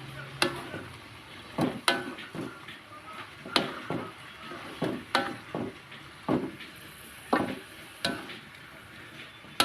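A spatula stirring in a well-used wok, knocking and scraping against the pan about a dozen times at an irregular pace, each knock ringing briefly, over a faint sizzle of stir-frying.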